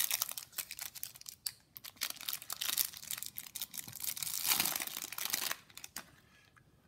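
Baseball card pack wrapper being torn open and crinkled by hand, a dense crackle of many quick clicks that dies down near the end.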